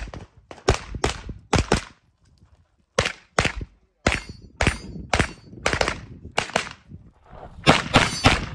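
9mm pistol-caliber carbine firing rapid shots, mostly in quick pairs, in several strings separated by short pauses.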